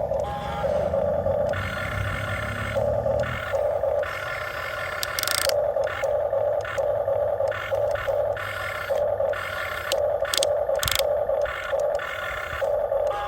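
Huina RC excavator's small electric motors whining in short bursts, starting and stopping again and again as its controls are worked, with a low rumble during the first three seconds or so.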